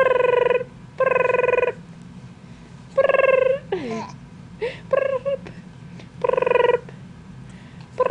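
Young infant cooing: four drawn-out, high, even-pitched coos about a second or more apart, with a few shorter, broken sounds and one falling sound in the middle.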